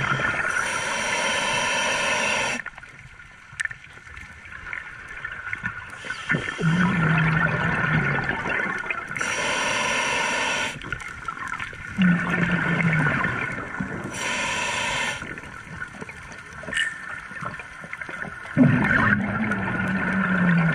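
Scuba diver breathing through a regulator underwater: each breath starts with a low hum and hiss, then bubbling from the exhaled air. The cycle repeats about every six seconds, with quieter pauses between breaths.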